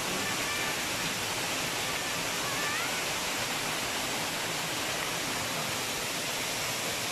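Waterfall rushing steadily as water cascades down a rock face into a pool.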